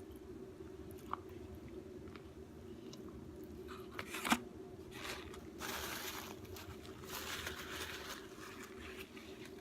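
A person eating a McDonald's burger close to the microphone: chewing and biting, with a sharp click about a second in, a louder snap just past four seconds, then several seconds of noisy chewing.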